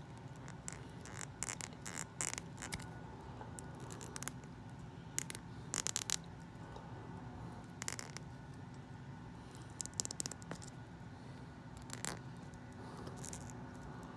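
Scattered small plastic clicks and scratches as fingers handle a mini doll and work its tiny plastic shoes onto its feet.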